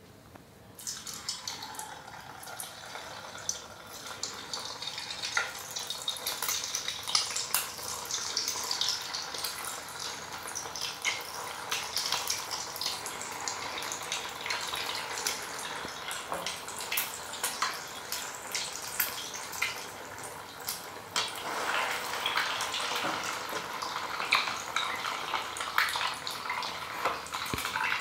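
Paneer balls deep-frying in hot oil in a kadai: a steady sizzle full of small crackles and pops. It starts about half a second in, as the balls go into the oil.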